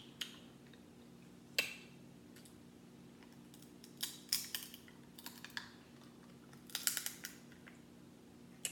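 Crab-leg shells cracking and snapping as they are broken open by hand and bitten: a single sharp crack about one and a half seconds in, then short clusters of crackling around four, five and seven seconds in.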